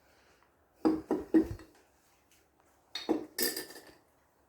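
Kitchen utensils knocking and clinking against a mixing bowl: two short clusters of a few sharp knocks, about a second in and again about three seconds in.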